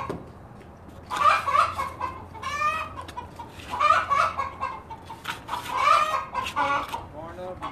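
Chickens clucking and squawking in several loud bouts of calls.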